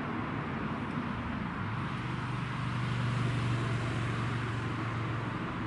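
Low engine drone of a passing motor vehicle over a steady background hiss; the hum swells about two seconds in and eases off near the end.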